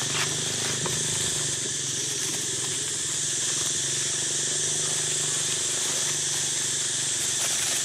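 Steady outdoor ambience: a continuous high-pitched hiss over a low, even hum, with faint rustles now and then.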